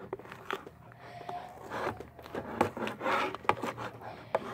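A mixing tool stirring sticky slime in a plastic bowl: irregular scraping and rubbing, with a few sharp clicks of the tool knocking against the bowl.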